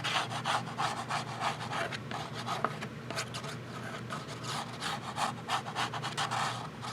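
Glue being applied to a cardstock panel: quick back-and-forth rubbing strokes on paper, about three to four a second.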